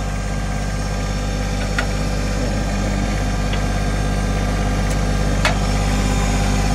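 John Deere 1025R's three-cylinder diesel engine running steadily, with two short metallic clicks, one about two seconds in and one near the end.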